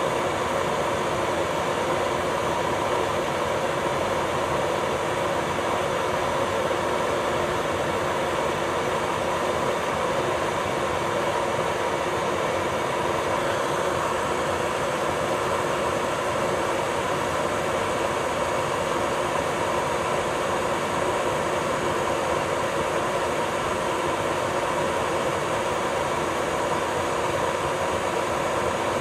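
Electric nail drill (e-file) running steadily with a slim cuticle bit, lifting the cuticle from the nail: an unchanging motor whine with several fixed pitches over a hiss.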